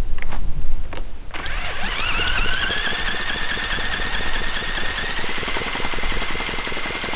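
Cordless drill cranking a model Jerry Howell V-twin petrol engine through a coupling on its crankshaft: the drill motor whine rises as it spins up, then holds steady over the rattle of the turning engine. The engine does not fire.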